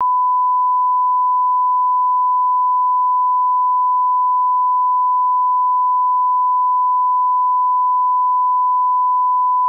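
Steady 1 kHz sine test tone, held unbroken at one level: the line-up reference tone that accompanies SMPTE colour bars.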